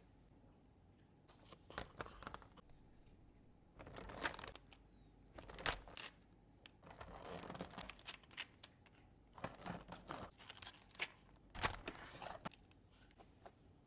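Keycap packaging being opened and handled: irregular crinkling and tearing of wrapping, mixed with short clicks and taps.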